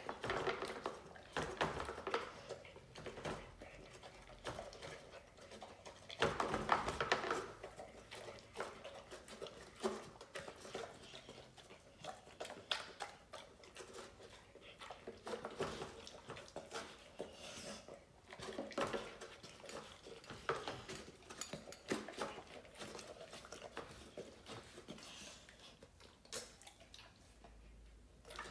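Dog eating wet food from a bowl: irregular clicks, clinks and scrapes of the bowl as it eats, with a louder stretch about six seconds in.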